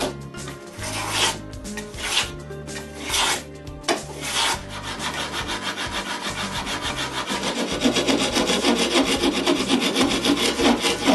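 Hand tools shaping the edge of a hardboard pattern: a few separate long strokes, then from about five seconds in a file rasping in quick, even back-and-forth strokes that grow louder near the end.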